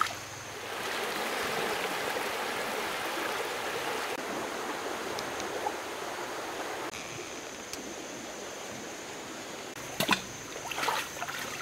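Shallow stream flowing steadily, a continuous hiss of running water. About ten seconds in come a few sharp splashes as someone wades and prods the water.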